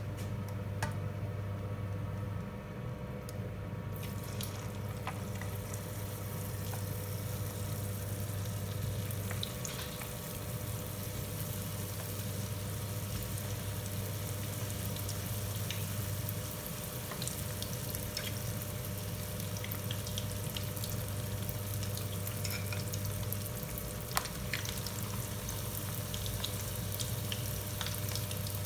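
Battered chicken feet frying in hot oil: a steady sizzle with scattered small pops that sets in about four seconds in, over a low steady hum.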